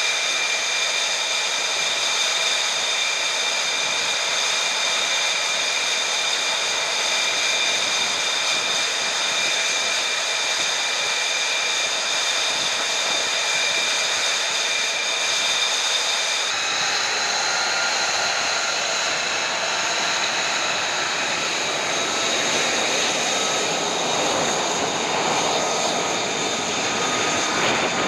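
F-35B Lightning II's Pratt & Whitney F135 turbofan running on the ground: a steady jet whine with several high whistling tones. About 16 seconds in the tones step slightly higher in pitch.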